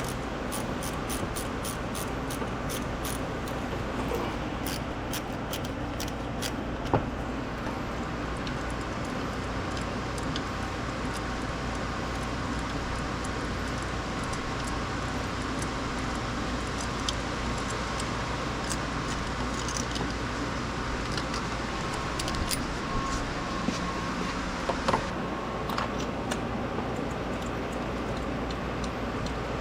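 Hand tools working on a car engine: a run of light, evenly spaced metallic clicks, then a single sharp knock, and a few scattered clicks and knocks near the end, over a steady hum.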